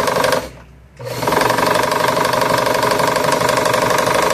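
Elgin sewing machine running fast with a rapid, even clatter; it stops briefly just after the start, then starts again about a second in and runs steadily. The noise is annoying, a sign of play in a shaft that the repairer later tightens out.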